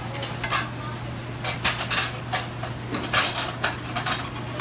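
Plates and metal utensils clattering as pasta is plated: irregular clinks and knocks of tongs and spoons on ceramic plates and pans, bunching into busier clatters about a second and a half in and again about three seconds in, over a steady low hum.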